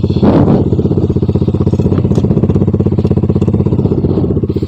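Gamma 200 motorcycle engine idling through an SC Project exhaust with its silencer insert removed: a steady, fast, even exhaust pulse. A short louder burst comes just after the start.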